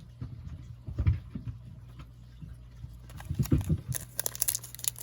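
Baseball trading cards being handled, with light taps and a few soft knocks. Near the end a crackly crinkling starts, from a foil card-pack wrapper being handled.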